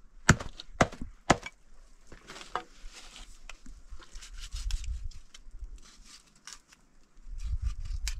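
A small hatchet chopping sheep carcass on a cloth over the ground: three sharp chops in the first second and a half, then lighter knocks and the scrape and click of a knife cutting through meat and bone. A low rumble comes in near the end.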